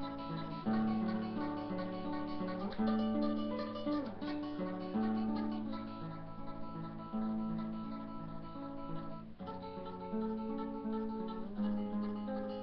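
Acoustic guitar played solo, notes and chords changing every second or so over a held low bass note.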